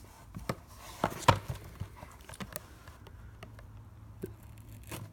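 A sealed box being handled and opened by hand: scattered taps, scrapes and clicks, with one louder knock a little over a second in.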